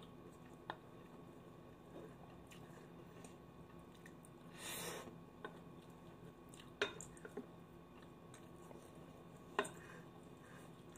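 Quiet eating: soft chewing, with three sharp clicks of a wooden spoon against the bowl and a brief soft hiss near the middle.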